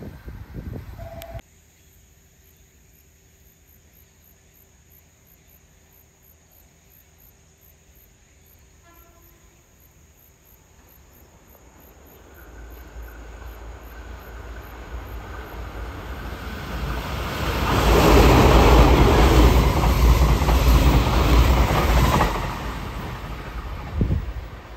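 JR Kyushu 885-series electric limited express running through the station without stopping: a rush of wheels on rail that swells over several seconds, is loudest for about five seconds as the train passes, then falls away. Near the start, the loud tail of an earlier train passage breaks off suddenly.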